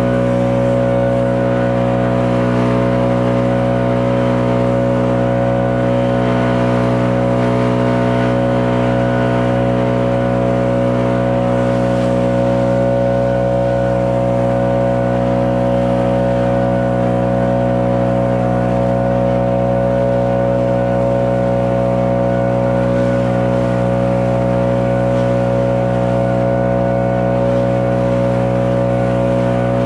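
Stihl BR 800 Magnum backpack blower's two-stroke engine running steadily at one pitch while blowing wet snow off the pavement.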